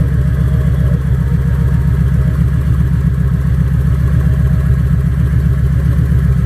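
Kawasaki Voyager motorcycle engine idling steadily with an even low pulse.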